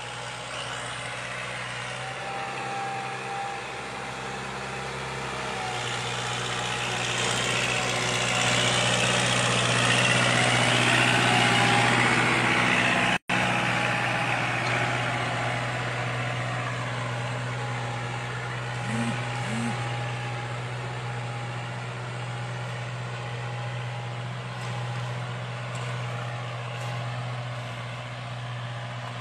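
45 hp Kubota tractor's diesel engine running steadily as it pulls a spring-tine cultivator through dry soil, not labouring under the load. It grows louder as the tractor comes close, from about seven to thirteen seconds in, and the sound cuts out for an instant just after.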